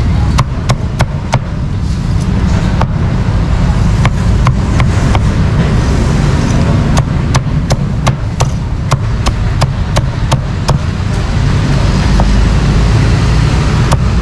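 Crispy roast pork being chopped with a knife: runs of sharp knocks, about three a second at their fastest, broken by pauses, over a steady low traffic rumble.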